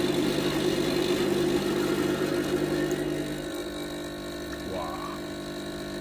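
Espresso machine's vibratory pump humming steadily as it pushes water through the coffee in the portafilter to pull a shot. The hum turns quieter about three and a half seconds in and runs on as the espresso starts to drip.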